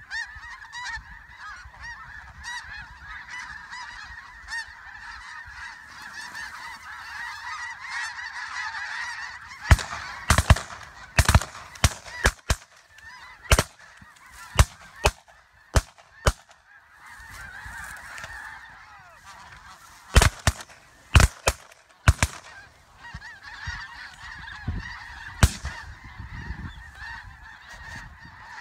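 A large flock of snow geese calling continuously in a dense honking chorus. About a third of the way in, a rapid volley of around a dozen shotgun shots rings out, then after a short pause a second, shorter volley, before the goose calling carries on.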